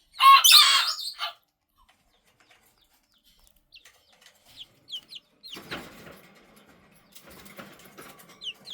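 Serama bantam chickens and their chicks: a loud, short squawk from an adult bird in the first second, then chicks peeping in short, high, falling cheeps, a few at a time. From about halfway through, a rustling, shuffling noise runs under the peeps.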